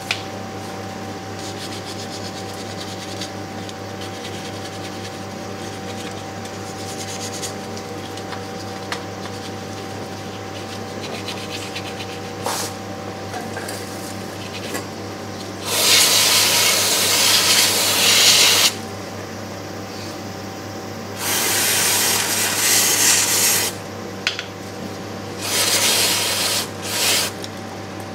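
A flat scraper being worked against the grimy underside of a Land Cruiser 40's gearbox case, giving three stretches of rough scraping of two to three seconds each, from about halfway through to near the end. A steady low hum runs underneath.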